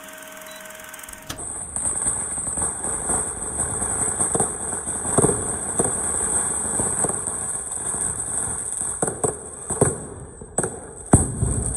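Fireworks and firecrackers going off: a run of sharp bangs and pops over a continuous crackle, the loudest bangs near the end. It opens with a second of a film-countdown leader, a steady tone with a short beep each second.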